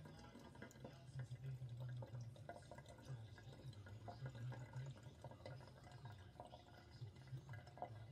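Faint dripping and trickling of water as a bowl of raw chicken gizzards drains in a sink, over a low background hum.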